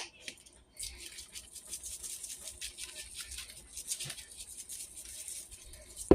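A shaker bottle of carne asada seasoning being shaken over chicken wings, its granules rattling in a quick, steady stream for about five seconds, after a sharp click at the start.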